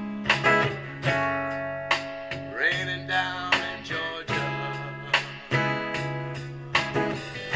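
Solo guitar strumming a slow ballad accompaniment, a chord struck about every half second and left ringing.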